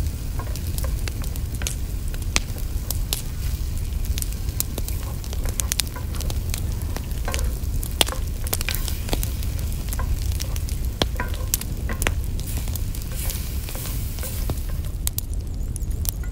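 Wooden spoon stirring and scraping a thick eggplant-and-kashk mixture in a cast-iron skillet, the food sizzling in the hot oil, with many sharp crackles and a steady low rumble underneath.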